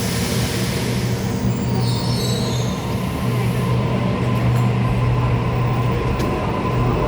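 Train wheels squealing against the rails for the first three or four seconds, with a steady low hum throughout.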